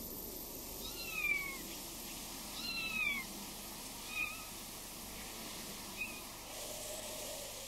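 An animal's short, high calls, four of them, each gliding down in pitch, spaced a second and a half or so apart, the first two the loudest.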